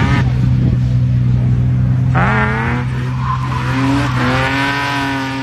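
A drift car's engine revving hard: its pitch climbs about two seconds in, then is held high and steady near the end, over a steady low engine drone.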